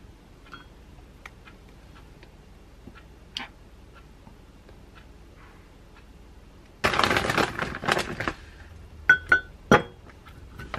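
Plastic bag of frozen mango crinkling loudly for about a second and a half, then frozen mango chunks dropping into a glass mug with three sharp clinks.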